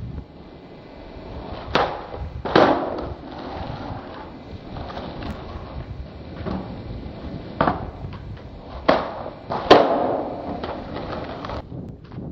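Skateboard clacking on asphalt: about five sharp cracks of the board's tail popping and the deck landing during flip tricks, loudest about two and a half and nine and a half seconds in. Under them, a steady rumble of wind on the microphone.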